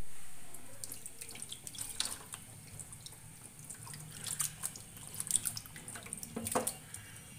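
Water sloshing and splashing in a bowl as a hand stirs and rubs raw chicken feet to wash them, in uneven wet splashes with scattered clicks.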